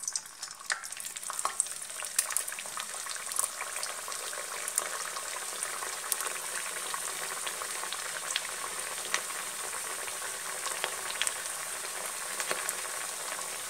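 A Maddur vada deep-frying in hot oil: a steady sizzle that sets in as the dough disc goes into the oil, with frequent sharp crackles and pops.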